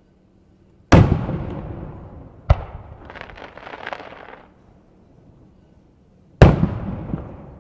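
Japanese aerial firework shells bursting: a loud boom about a second in that fades away in echoes, a sharper bang about two and a half seconds in followed by a second or so of crackling, and another loud boom near the end that again fades slowly.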